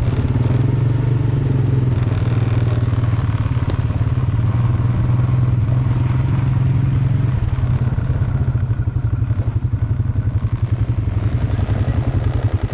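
ATV (quad bike) engines running steadily as the quads ride a dirt trail, picked up close by an action camera on the moving rider, with a deep steady hum. From about eight seconds in the sound takes on a fast, fluttering throb.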